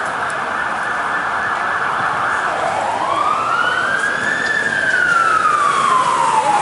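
Ambulance siren growing louder as it approaches: a rapid yelp that switches about two and a half seconds in to a slow wail, rising in pitch and then falling.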